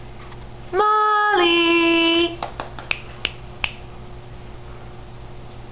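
Squeaker in a plush chickadee toy squeaking once for about a second and a half as a puppy bites it, the pitch stepping down partway through. A run of sharp clicks follows.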